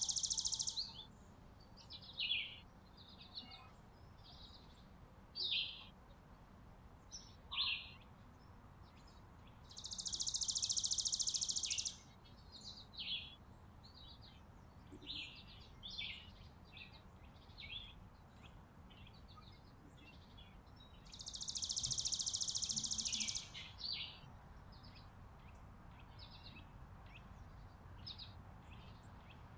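Small songbirds calling at a winter feeder: a high, buzzy trill about two seconds long comes three times, about eleven seconds apart, with short high chirps scattered between the trills.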